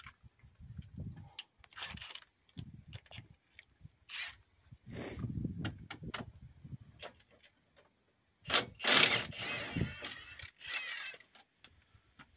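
Metal sockets and hand tools clinking and scraping, with scattered sharp clicks and handling knocks while the tools are worked on the bolts at a car's bared front hub. About eight and a half seconds in comes a louder, noisy stretch lasting a couple of seconds.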